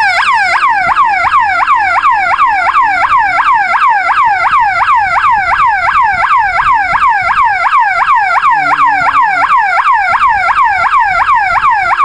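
12-volt alarm siren sounding through a horn speaker, set off by breaking the dual beam sensor's beam: a loud, quick falling sweep repeated about three times a second.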